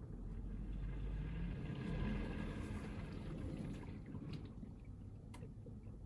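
Bosch dishwasher running a wash cycle: the pump hums steadily while water sprays and sloshes inside the tub, swelling over the first couple of seconds and easing about four seconds in. Two light clicks come near the end.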